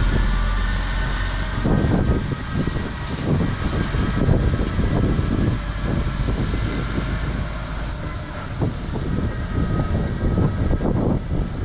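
Strong gusty wind buffeting the microphone, a low rumbling noise that swells and drops in irregular gusts, as a thunderstorm front moves in.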